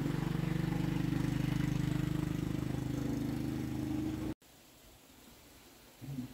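A motor running steadily with a fast, even pulse, cut off abruptly a little over four seconds in; low room tone follows, with a brief faint knock near the end.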